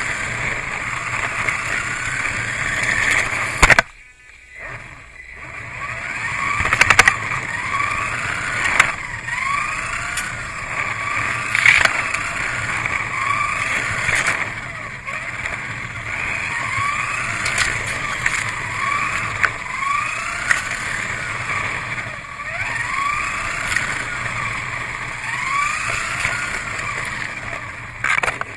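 Kyosho Mini-Z McLaren GT3 RC car's small electric motor whining, its pitch rising over and over as the car speeds up in repeated bursts, with scattered sharp clicks. Near the start there is a loud knock, and the sound drops away for a couple of seconds before the motor whine builds back.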